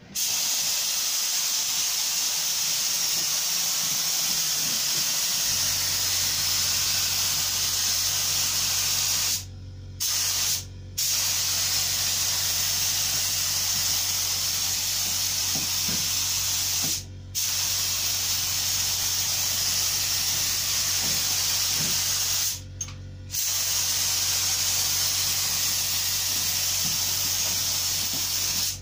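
DeVilbiss FLG5 gravity-feed air spray gun spraying a finish coat: a steady loud hiss of air and atomised finish, broken four times by short pauses where the trigger is let go between passes. A low steady hum comes in about five seconds in.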